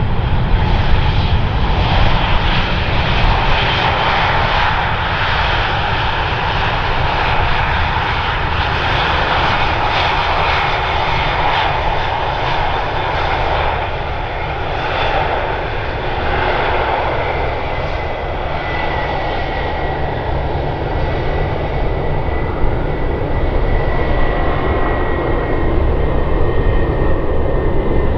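Airbus A320's jet engines during the landing rollout: a loud, steady rush of engine noise as the airliner slows on the runway, with a thin high whine coming in about two-thirds of the way through.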